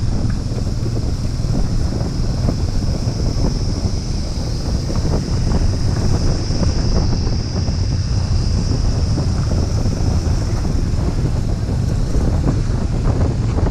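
Wind buffeting the microphone over the steady running of a Suzuki Gixxer 155's single-cylinder engine, riding on a loose gravel road with tyre crackle.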